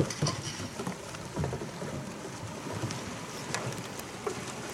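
Canoe polo kayaks and paddles jostling in a scrum: water splashing with scattered sharp knocks of paddles and hulls, the loudest right at the start.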